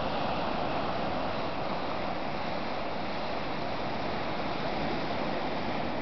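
Sea surf breaking on a rocky shore, mixed with wind: a steady, even rushing noise.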